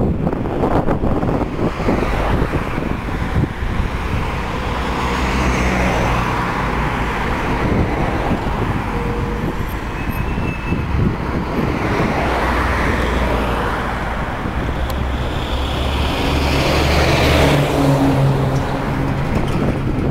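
Road traffic: cars passing close by one after another on the street, their engines and tyres swelling and fading several times.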